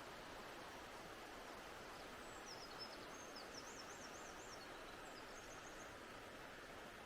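Faint steady rush of a river running high. A small songbird sings a quick, high, zigzagging trill from about two to five and a half seconds in.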